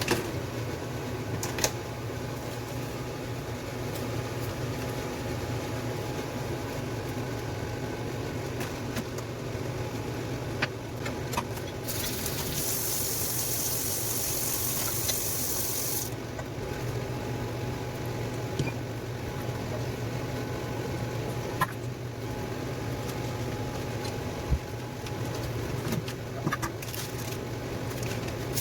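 Stovetop cooking under a steady mechanical hum, with a few sharp clinks of utensils. A hiss starts about twelve seconds in and lasts about four seconds.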